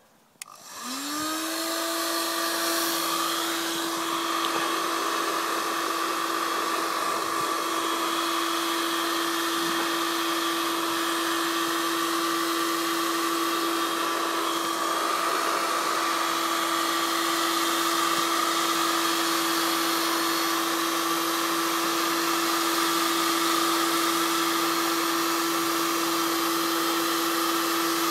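Black & Decker KX1600 1400 W heat gun switched on with a click, its fan motor whine rising in pitch over about a second, then running steadily with a rush of hot air as it is played over faded plastic car trim.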